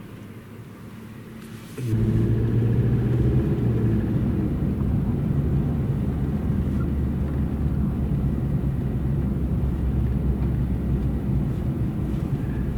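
Car engine and road noise, a steady low rumble that comes in suddenly about two seconds in and holds.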